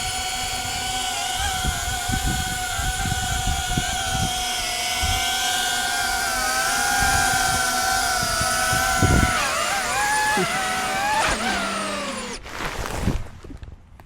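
DJI Avata 2 FPV drone's propellers whining steadily in flight, the pitch wavering and then sliding up and down with throttle changes in the last few seconds, before the whine breaks off suddenly near the end.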